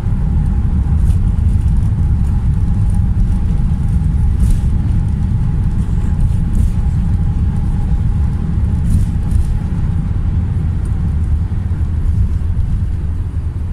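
Steady low rumble inside the cabin of a jet airliner rolling along the runway after landing: engine and wheel noise, with a faint steady whine that fades about two-thirds of the way through.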